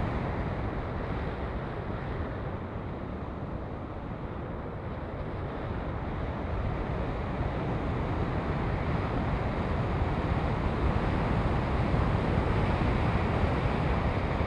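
Steady rush of wind noise over the onboard camera of a 3D-printed RC eagle plane in flight, easing a little a few seconds in and building again toward the end.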